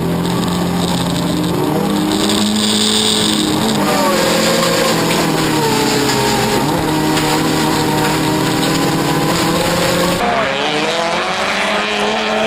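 Offroad rallycross Toyota Corolla's engine running hard under load. The engine note holds fairly steady between several step changes up and down in pitch, and a hiss cuts out about ten seconds in.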